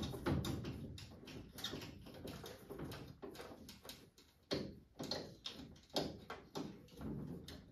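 Irregular clicks, knocks and rattles of a screwdriver and the boiler's plastic and metal parts being handled as screws are taken out of the circulator pump assembly, with several louder knocks in the second half.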